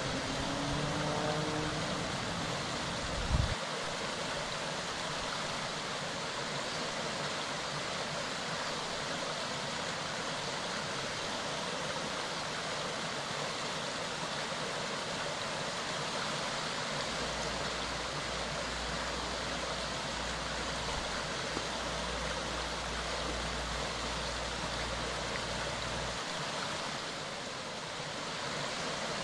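Mountain stream, water running over stones in a steady rush. A low thump comes about three seconds in, and a faint low rumble sits under the water through the middle and cuts off suddenly.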